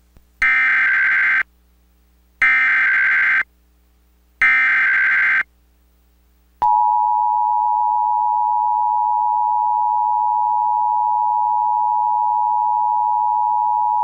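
Emergency Alert System SAME header: three one-second bursts of shrill digital data tones, a second apart, encoding a tornado warning. About halfway through, the steady two-tone EAS attention signal starts and holds without a break.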